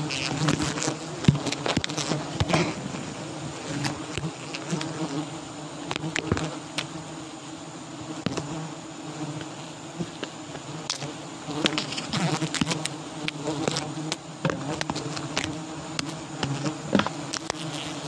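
A dense colony of wild giant honeybees buzzing as one steady low drone, with many short sharp clicks and knocks scattered throughout.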